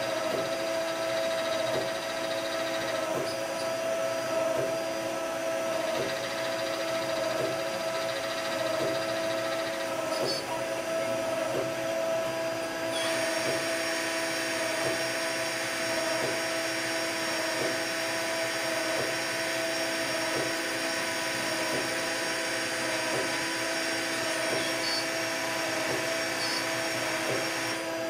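CNC turn-mill machine running, a steady mechanical hum with several fixed whining tones and a light tick about twice a second. About 13 seconds in, a brighter, hissing cutting sound joins as a gear hob works the turned part.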